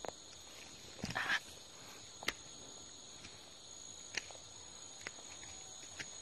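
Insects droning steadily at a high pitch, with footsteps crunching on dry leaves and twigs, about one step a second and a louder crunch about a second in.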